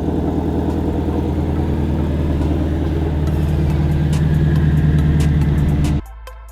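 Ford Shelby GT350's 5.2-litre flat-plane-crank V8 idling just after a cold start, still on its stock exhaust with the resonator in place, pretty loud already. The engine sound cuts off abruptly near the end and music begins.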